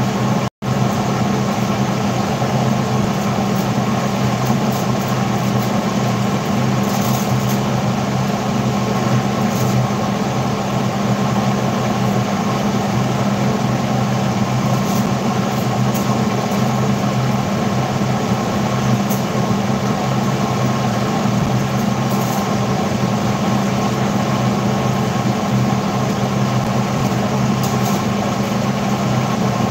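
Steady motor hum and whir of a running kitchen appliance, unchanging throughout, with a momentary dropout about half a second in.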